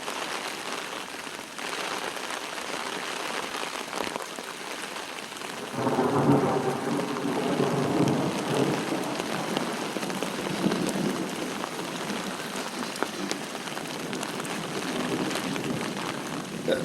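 Steady rain falling, then about six seconds in a roll of thunder breaks in and rumbles on, slowly fading under the rain.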